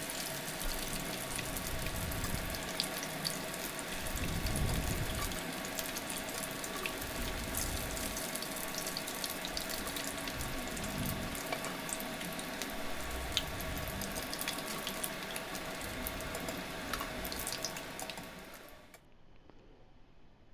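Batter-coated paneer cubes deep-frying in hot oil: a steady sizzle with fine crackling throughout, which cuts off near the end.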